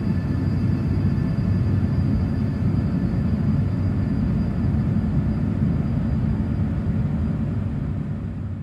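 Steady, dense low rumble from a re-composed street field recording, with faint steady high tones above it; it fades out near the end.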